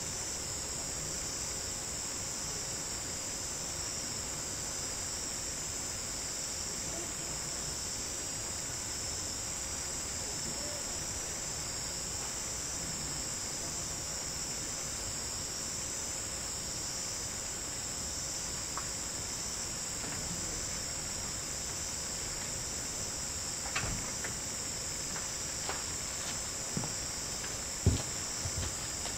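Night insect chorus, a steady high-pitched chirring with a fast pulsing rhythm, typical of crickets in autumn. A few sharp knocks come in near the end, the loudest about a second before it ends.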